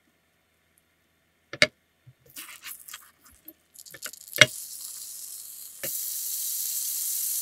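A spatula knocks twice against a square nonstick frying pan and scrapes as an egg-and-ham toast is folded in half. Then the toast starts sizzling in butter, faint at first and steady and louder from about six seconds in.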